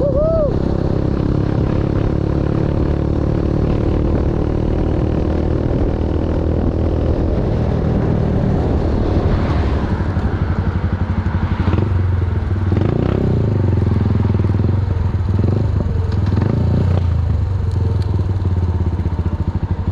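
Motorcycle engine running as the bike is ridden along a road, the note shifting around the middle as it slows. Near the end it settles into an even, pulsing idle.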